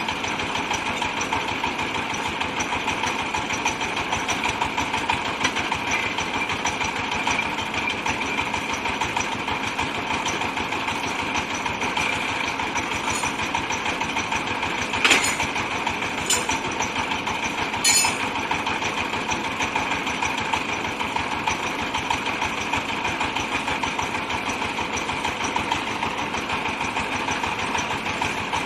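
Compressed-air well-drilling rig running steadily, a dense rapid hammering over its engine noise. Two sharp metallic clanks come about halfway through, a few seconds apart, the second one ringing briefly.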